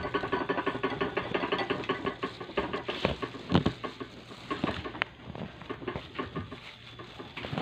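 Plastic takeout bag rustling and crinkling as a hand digs through it, with a few louder crackles about three seconds in.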